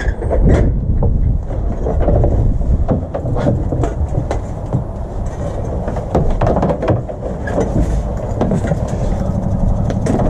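A metal-framed hose reel and blue hose being handled and unwound, giving repeated clattering clicks and knocks over a steady low rumble.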